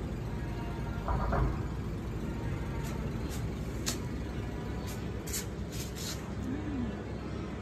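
Steady low rumble of distant road traffic. A brief louder pitched sound comes about a second in, and a few sharp high clicks fall in the middle.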